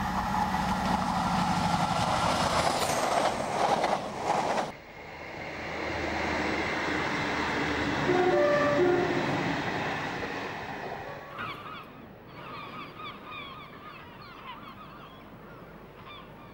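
An InterCity 125 high-speed diesel train runs past close by, its engine drone over wheel and rail noise, cut off suddenly about five seconds in. A second train then rumbles across a bridge and sounds two short horn notes near the middle. Birds call over fainter background noise near the end.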